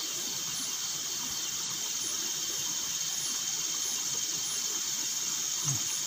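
Night insects chorusing: a steady high drone with a quick, very high chirp repeating about once or twice a second. A brief low sound comes near the end.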